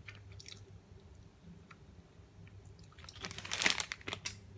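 Plastic food wrapper crinkling in the hand, with a few faint ticks at first and then a loud burst of crackling about three seconds in as the pack is turned over.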